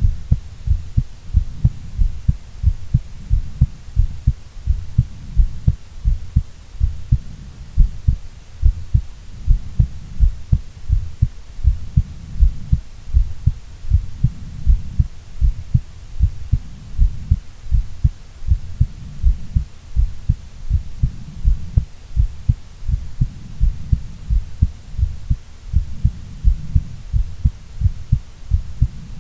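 A woman's heartbeat: a steady, regular run of low, dull thumps, beat after beat without a break.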